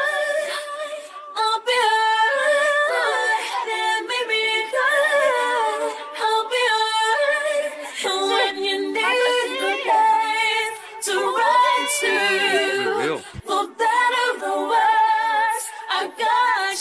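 Music: a song carried by layered, harmonised singing voices with little accompaniment and no bass.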